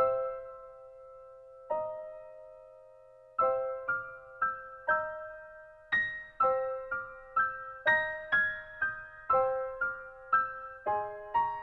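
Background music: a piano melody of single struck notes that ring and fade, with a pause after the opening note before the tune picks up again.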